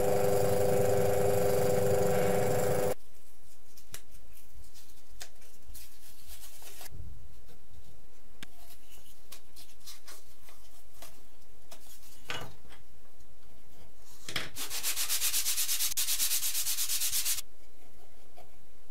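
A steady hum with a hiss for the first three seconds, cut off suddenly. A few light clicks follow, then about three seconds of quick back-and-forth rasping near the end, typical of sandpaper rubbed over a wooden part.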